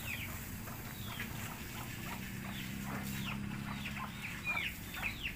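Birds chirping: many short, high chirps that fall in pitch, scattered and coming faster near the end, over a faint low hum.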